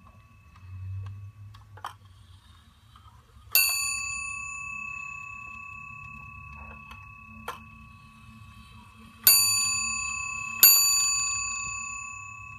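A Warmink Zaanse wall clock's 8-day striking movement hammers its bell three times: one stroke, then two more close together about a second and a half apart. Each stroke rings out with a clear, lingering bell tone that slowly dies away. A few faint clicks from the movement fall between the strokes.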